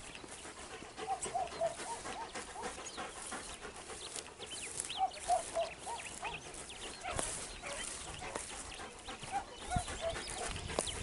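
Faint beagles yelping in short runs of three or four notes, a few times over, with small birds chirping.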